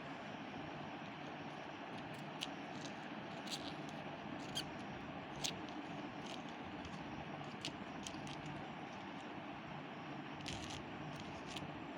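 Scattered light clicks and taps from handling the AirPods Pro case and packaging, about one a second at irregular intervals, over a steady background hiss.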